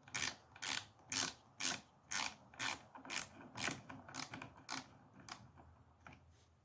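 A hand tool turning out Torx screws on a Stihl MS 400 C chainsaw's filter housing: a rasping stroke about twice a second, about ten in all, stopping about five seconds in.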